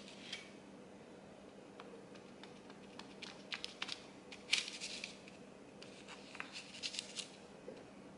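A knife cutting rolled pastry dough on a parchment-lined metal baking sheet: faint scrapes and taps of the blade against the paper and pan, in a few short clusters.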